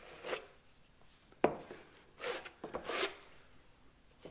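Metal drywall knife scraping across wet quick-set joint compound, pressing paper tape into the mud on drywall, in about four short strokes, one of them starting with a sharp tap.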